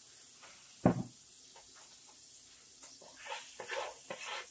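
A single knock about a second in, then a wooden spoon scraping and stirring cooking wine around a hot nonstick skillet in short, irregular strokes to deglaze it.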